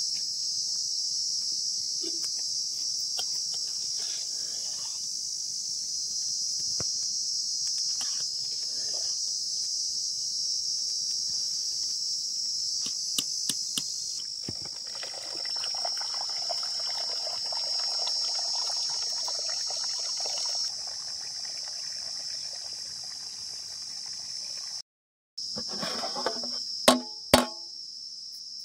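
Crickets chirring in a steady, dense, high-pitched chorus. For about six seconds in the middle, liquid bubbling and sloshing from a pot of rice boiling over a wood fire. Near the end come two sharp, ringing metallic clinks.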